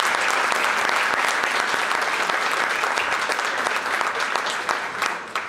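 Audience applauding with dense, steady clapping that thins to a few scattered claps and dies away near the end.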